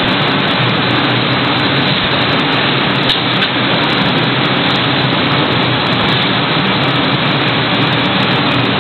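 Automatic carton freezer machinery running: a steady, loud rushing noise with a low hum underneath.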